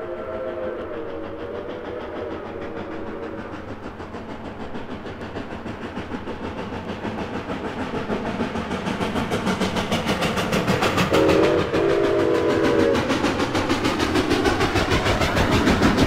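Coal-fired 4-8-4 steam locomotive No. 2101 of the Chessie Steam Special working hard. A chime steam whistle sounds at the start and fades out within about four seconds. Rapid exhaust beats then grow steadily louder, and the whistle sounds again for about two seconds, with a brief break, some eleven seconds in.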